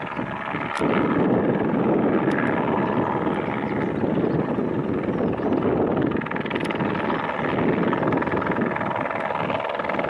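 Eurocopter AS350-family Squirrel helicopter flying low and approaching: the rotor and turbine noise swells about a second in, then stays loud and steady, with a steady whine through it.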